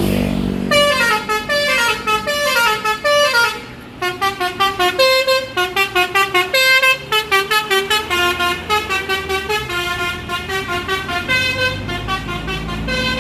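Basuri telolet bus horn playing rapid melodic runs of short notes that step up and down in pitch, with a brief pause about three and a half seconds in. A bus engine runs underneath.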